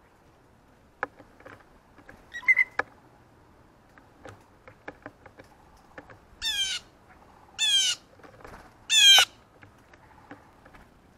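Blue jay giving three harsh jay calls in the second half, each about half a second long and falling in pitch, after a shorter sharp call about two and a half seconds in. Scattered light clicks and taps run between the calls.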